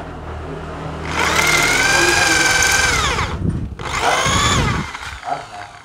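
Electric hand drill with a twist bit boring out a stripped bolt thread in a cast metal motorcycle part, enlarging the hole for re-tapping. About a second in, it runs with a steady whine for roughly two seconds, then winds down. A second, shorter run follows and also falls away.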